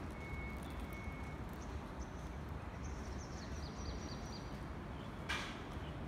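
Steady low outdoor background rumble, with a bird giving a quick run of short high chirps around the middle and a single sharp knock near the end.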